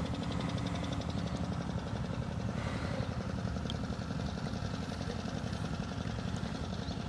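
Small engine running steadily, a low even rumble.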